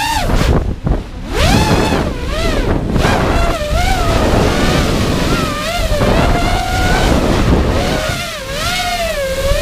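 Racing quadcopter's EMAX RS2205 2300KV brushless motors and propellers whining, the pitch swooping up and down constantly with the throttle, with wind rushing over the onboard camera's microphone. The whine drops away briefly about a second in.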